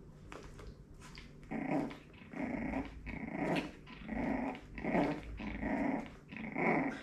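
Dog growling in a string of short, repeated growls, starting about a second and a half in, as a young Jack Russell puppy tussles with the mother dog.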